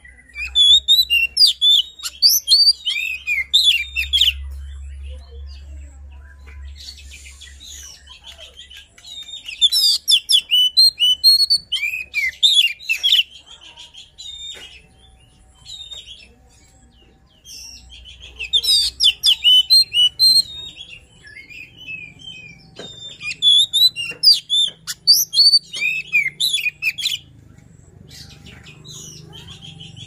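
Oriental magpie-robin (kacer) singing vigorously in four loud bouts of rapid, varied whistles and chattering notes, with short pauses between them and a faint low hum underneath.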